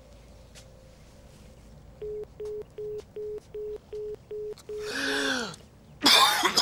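Telephone busy tone: about eight short beeps at one pitch, roughly three a second, heard from a phone handset after the other end has hung up. It is followed by a man's falling, strained groan and the start of a loud cough near the end.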